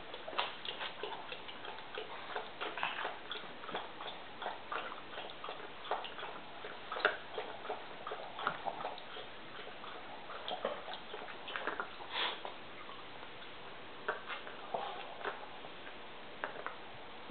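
Dogs shifting about in a dog bed: scattered light clicks and taps, irregular and in small clusters, one sharper tap about seven seconds in.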